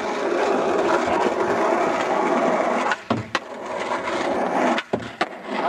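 Skateboard wheels rolling, with sharp clacks of the board about three seconds in and again near the end.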